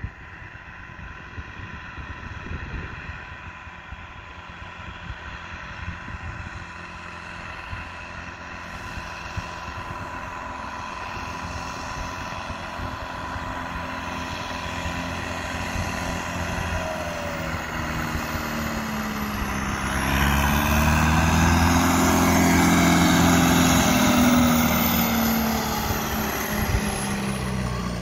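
Allis-Chalmers D17 diesel tractor driving on a gravel road. Its engine grows steadily louder as it approaches and is loudest as it passes close by, about twenty seconds in, with the engine note bending as it goes by.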